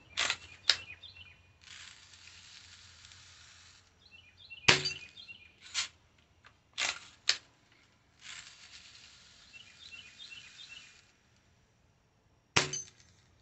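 Daisy Model 1999 lever-action BB gun being cocked and fired: a series of sharp clicks and snaps, the loudest about five seconds in and again near the end. Faint bird chirps and two stretches of steady hiss lie behind.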